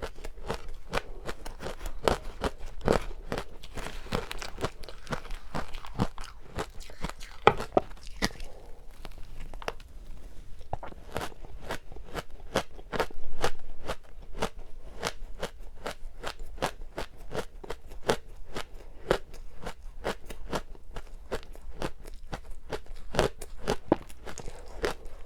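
Close-up chewing of frozen matcha ice: a steady run of crisp crunches, several a second, with one louder crunching bite about thirteen seconds in.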